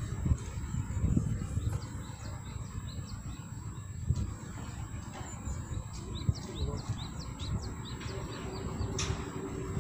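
Wind buffeting the microphone as a low, uneven rumble, with small birds chirping in a quick run of short falling notes in the second half. A single sharp click comes near the end.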